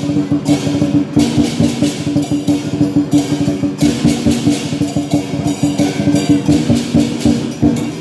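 Chinese dragon dance percussion: a drum beating a fast, steady rhythm, with cymbals clashing in repeated bursts over a ringing low tone.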